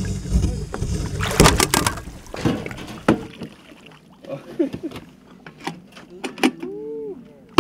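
Bottom-set gill net being paid out over the side of a small aluminium boat: irregular knocks and clicks of the net and its lines against the hull, with a low rumble for the first three seconds and a sharp knock at the very end.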